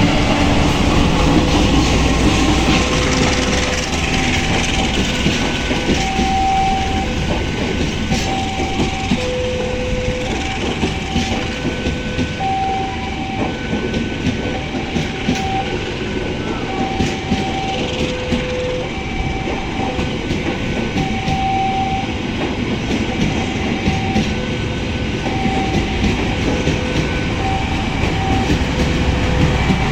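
A train passing over a level crossing, its wheels clattering over the rails, while the crossing's electronic warning alarm repeats short tones at a few different pitches.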